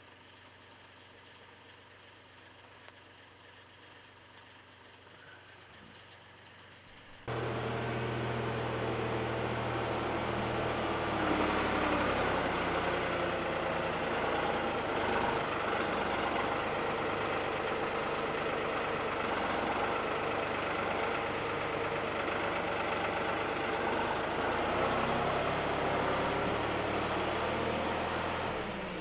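A faint, steady engine idle, then about seven seconds in the loud, steady running of a New Holland TN75DA tractor's diesel engine cuts in and carries on as it works the front loader carrying a round bale.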